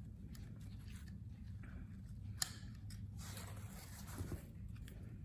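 Soft rustling and handling noises as a rifle sling is pulled out, with one sharp click about two and a half seconds in, over a steady low hum.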